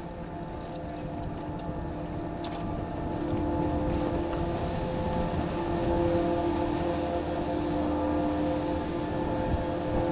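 Chairlift terminal machinery running: a steady mechanical hum with several held tones, growing louder a few seconds in.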